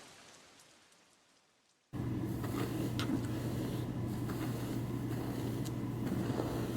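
A short stretch of silence, then, about two seconds in, steady room tone with a low hum starts abruptly, with a few faint clicks and rustles.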